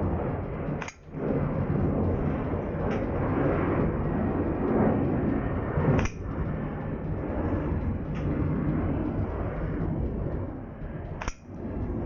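Custom Echo 1 M28 bolt-action airsoft sniper rifle firing three shots about five seconds apart, each a sharp crack. A fainter click comes about two seconds after each shot. Under them runs a steady background rumble.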